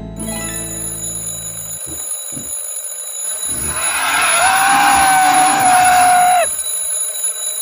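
An alarm clock rings steadily, and a loud, held, wailing creature cry sounds over it from about three and a half seconds in, cutting off sharply about three seconds later.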